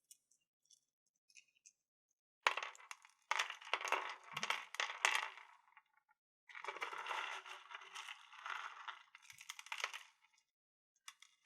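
Small crystals clinking and clattering against each other in two spells of a few seconds each: a dense run of small clicks and taps.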